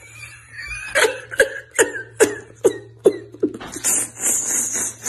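A man laughing hard in a run of sharp bursts, about two or three a second, each falling in pitch. Near the end it turns into a longer breathy wheeze.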